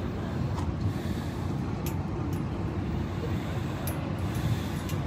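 Wind buffeting the microphone: a steady low rumble with a few faint clicks.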